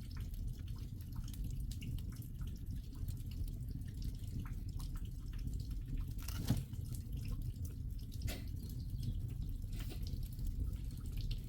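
Rain falling, heard as many scattered drips ticking over a steady low rumble, with a louder drip about six and a half seconds in.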